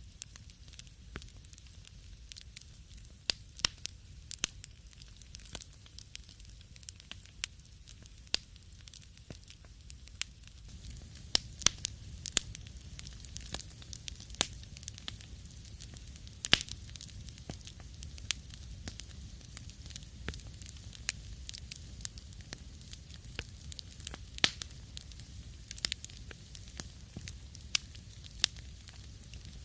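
Wood fire crackling in a fireplace: irregular sharp pops and snaps over a low, steady rumble of flame. About ten seconds in, the background grows somewhat louder and the pops come more often.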